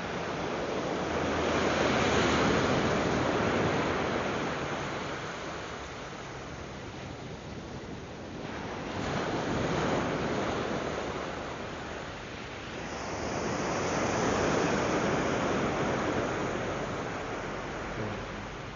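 Surf waves breaking and washing up a sandy beach, a rushing noise that swells and falls away three times.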